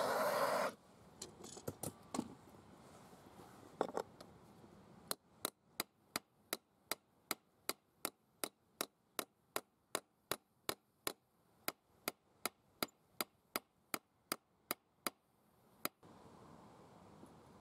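A blowtorch flame hissing, cut off within the first second. Then a steel hammer striking the heated pivot of a pair of pliers: a few scattered knocks, then a steady run of sharp blows, nearly three a second, for about ten seconds, to free the joint.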